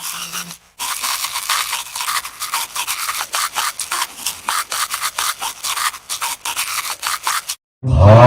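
Rapid scratchy scrubbing strokes, several per second, like a stiff brush or rasp worked back and forth. Near the end it cuts off and a loud, pitched, drawn-out vocal-like sound begins.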